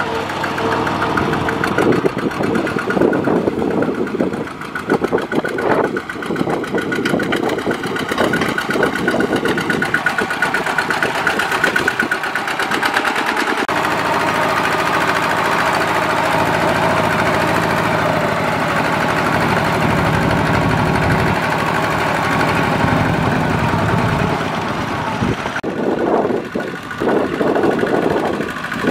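Single-cylinder diesel engine of a two-wheel walking tractor running under load, a fast, even chugging, as it pulls a loaded cart through deep mud.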